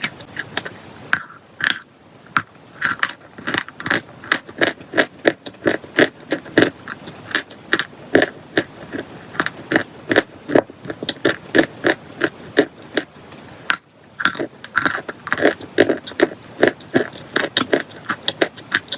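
Brittle chalk-like material crunching and crackling in quick, sharp snaps, a few a second, with brief lulls about two seconds in and near fourteen seconds.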